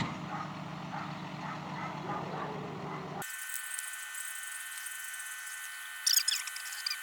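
A low steady hum, then an abrupt change about three seconds in to an angle grinder with a thin slitting disc whining steadily. From about six seconds in it squeals and scrapes loudly as the disc bites into the boat's steel to cut a window opening.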